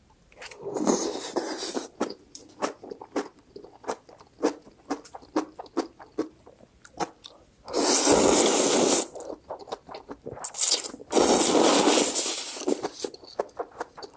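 Slurping of spicy instant ramen noodles: a short slurp near the start and two long, loud slurps in the second half, with wet chewing and mouth clicks in between.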